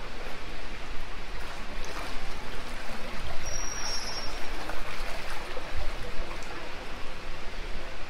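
Steady rush of flowing water.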